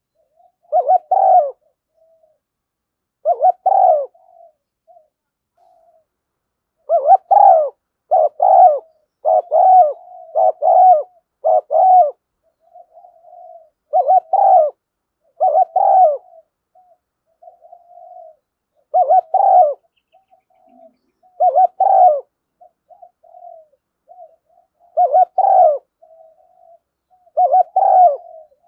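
Spotted dove cooing: loud, repeated coo phrases every one to three seconds, with soft low notes in the gaps between them.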